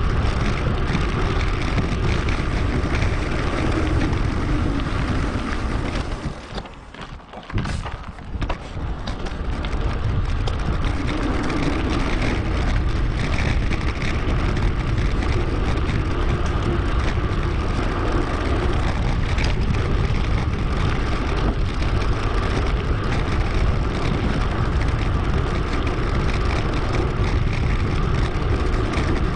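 Wind buffeting a GoPro's microphone while riding a bicycle, a steady rushing noise with a deep rumble, sped up 2.5 times. It drops away sharply for a couple of seconds about seven seconds in, then returns.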